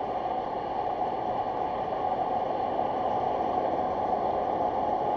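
Steady road and engine noise inside a car cabin driving on a highway, an even rush with no changes, as picked up by a dash cam's built-in microphone.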